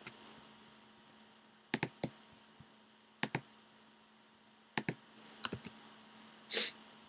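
Scattered single clicks and taps on a computer keyboard, a few seconds apart, over a faint steady electrical hum.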